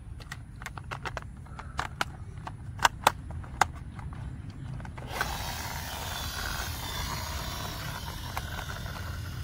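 Sharp clicks and snaps of hard plastic toy-car parts being handled and pressed together, the three loudest close together about three seconds in. A low rumble runs underneath. About five seconds in, a steady hiss of background noise sets in suddenly.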